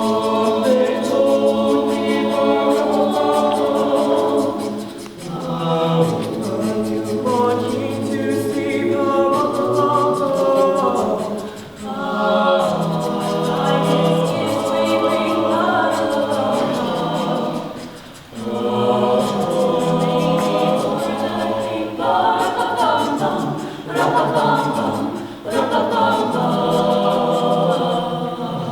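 Mixed-voice madrigal choir singing a cappella in several-part harmony, in long phrases with short breaths between them.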